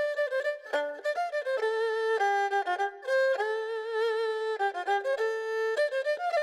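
Background music: a solo bowed-string melody, its notes held with vibrato.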